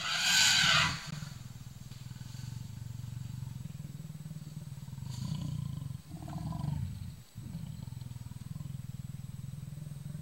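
Leopard growling low and continuously at its reflection in a mirror. It opens with a louder, harsher burst lasting about a second, and the rumble breaks briefly twice near the middle, as if for breaths.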